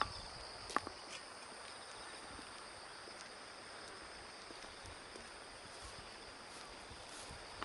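Faint outdoor ambience: a steady high hiss with a few soft clicks about a second in.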